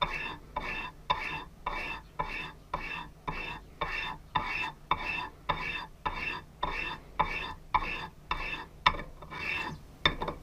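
A small metal part rubbed back and forth by hand on sandpaper laid flat, an even run of scraping strokes at about two a second.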